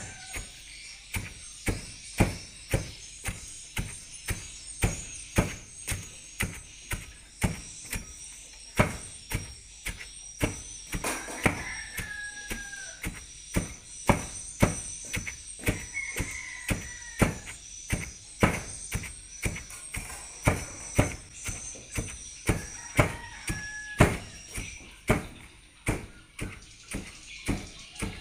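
A long pestle pounding cassava leaves with spices in a plastic tub, striking in a steady rhythm of about one and a half blows a second, grinding the leaves into a paste.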